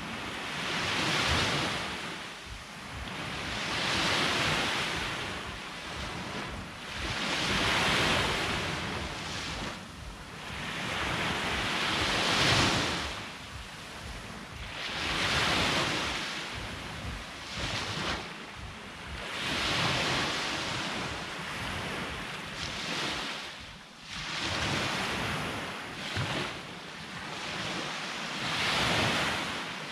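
Sea waves breaking on the shore, swelling and falling back about every four seconds, with wind buffeting the microphone.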